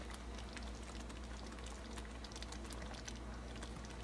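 Thick ground-beef tomato sauce simmering in a pot, its bubbles popping in small irregular clicks, over a low steady hum.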